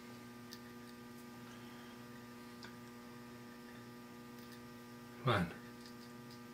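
Steady electrical mains hum with evenly spaced overtones, with a faint tick or two and one brief, louder sound about five seconds in.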